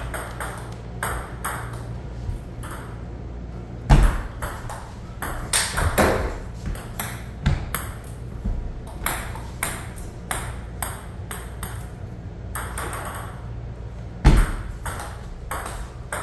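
Table tennis rally: a plastic ping-pong ball clicking back and forth off the paddles and the table in quick, irregular clicks. Two louder thumps come about four seconds in and near the end.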